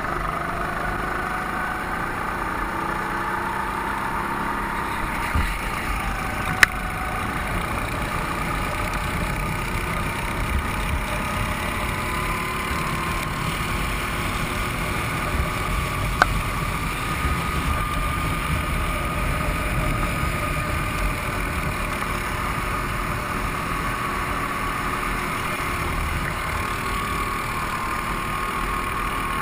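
Go-kart engines running, a steady drone whose pitch drifts gently up and down, with two sharp clicks, one about six seconds in and one about sixteen seconds in.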